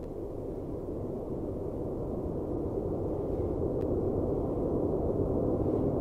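A steady wash of low, rushing noise without a clear pitch, sitting mostly in the low and middle range and slowly growing louder: a noise drone in the soundtrack.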